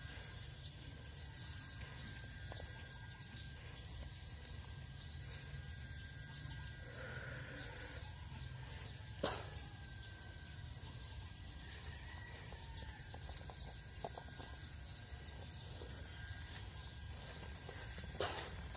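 Outdoor pond-side ambience: a low rumble of wind on the microphone under a steady high-pitched tone, with a faint distant bird call about seven seconds in. Two short sharp clicks stand out, about halfway through and again near the end.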